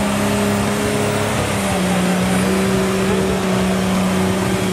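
Off-road 4x4's engine running under load as the vehicle climbs a muddy slope, held at steady revs, its pitch dropping slightly about a second and a half in.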